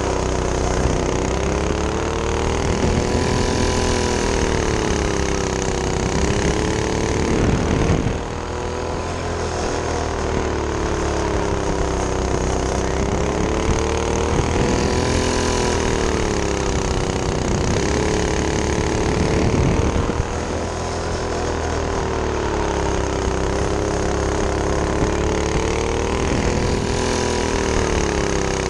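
Predator single-cylinder four-stroke engine on a go-kart, heard onboard while driving, its pitch rising and falling again and again as the kart speeds up and slows for the turns. The loudness drops briefly twice, about eight and twenty seconds in, as the throttle is let off.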